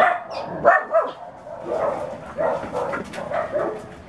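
A dog barking repeatedly in short calls, about two a second.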